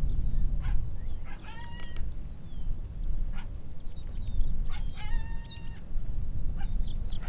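Short, high-pitched animal yelps in two quick clusters, some stepping up and down in pitch, over a steady low rumble.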